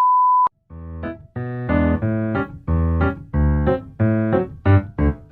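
A steady electronic beep that cuts off about half a second in, followed by a short electric-piano tune: a run of separate notes and chords, each struck and decaying.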